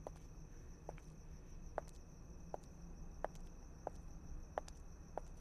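Faint night ambience of crickets, a steady high trill, with a person's footsteps about every three-quarters of a second.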